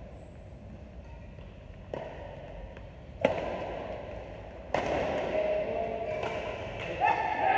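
Badminton rackets striking a shuttlecock during a doubles rally: four sharp cracks about a second and a half apart, each echoing in the hall. The hit a little past three seconds in is the loudest.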